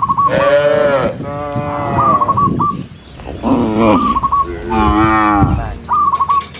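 Cattle mooing: several long, loud moos one after another from different animals, most falling in pitch. Between them come short clusters of high chirping notes about every two seconds.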